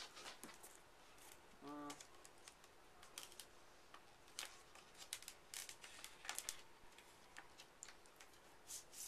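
Faint paper rustling and light ticks from a vinyl record's cardboard sleeve and paper inner sleeve being handled, with a brief murmur a couple of seconds in.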